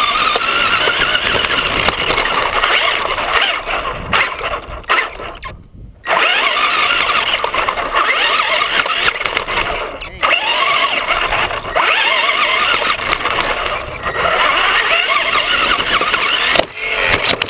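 Traxxas RC car's motor whining loudly from on board, its pitch rising and falling as the car speeds up and slows, with tyre and rough-ground noise underneath. The sound drops out suddenly for a moment just before six seconds in, and breaks briefly twice more.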